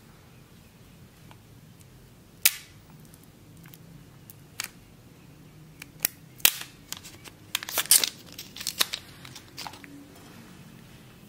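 Fingernails and fingertips tapping and clicking on the hard plastic body of a second-generation Apple Pencil as it is handled: one sharp click about two and a half seconds in, then a close cluster of quick taps and clicks in the second half.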